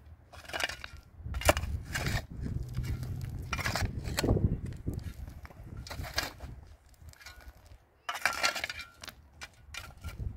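Crunching and scraping of digging into stony earth, irregular strokes every second or two, with a longer burst of crunching about eight seconds in.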